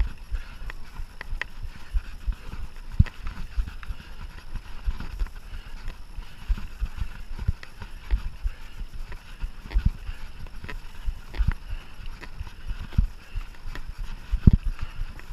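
Mountain bike being ridden over rough trail: a constant clatter of irregular knocks and thumps from the bike, with the heaviest thump near the end.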